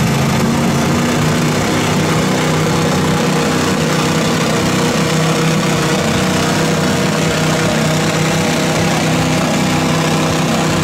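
Engine of an off-road mud vehicle running steadily at a fairly constant speed, loud and close.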